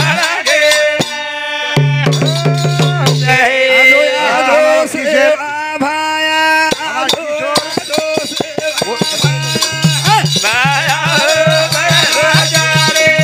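Group of men singing a Banjara devotional bhajan, a lead voice answered by others, over steady percussion clicks and a low bass note that repeats on and off.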